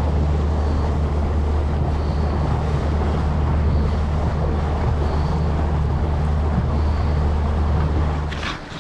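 Outboard motor of a small aluminium fishing boat running steadily under way, a deep even drone with wind buffeting the microphone. Near the end the motor sound drops away sharply as it is throttled back.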